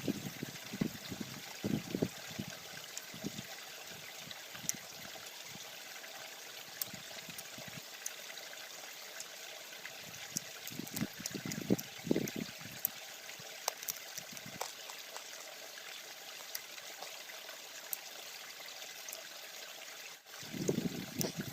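A small stream babbling steadily over rocks, with scattered faint clicks and a few bouts of low thumps or knocks near the start, in the middle and near the end.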